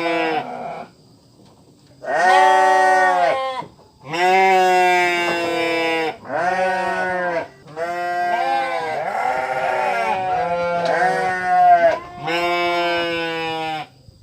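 Sheep or goats bleating: a run of long, wavering bleats, each a second or two, with short gaps between them; in the middle several bleats run together and overlap.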